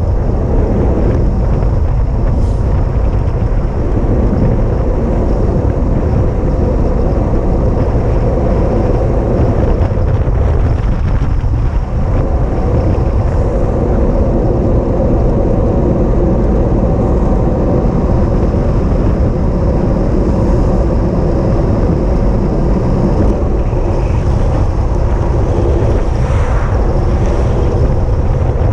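A vehicle engine running steadily, with wind buffeting the microphone.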